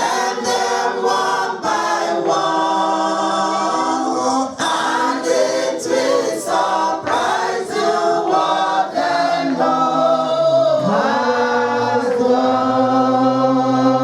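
A choir singing a hymn in parts, with notes changing about every second and a long held chord near the end.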